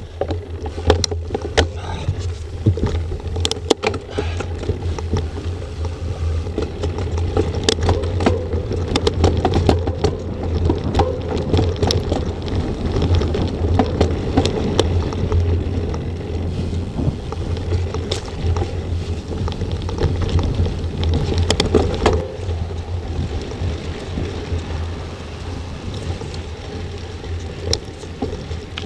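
Mountain bike riding over dirt and gravel trail, heard through an action camera's microphone: wind buffeting the microphone with a low rumble, tyre noise, and the bike rattling with frequent sharp clicks and knocks over bumps. It turns a little quieter in the last few seconds.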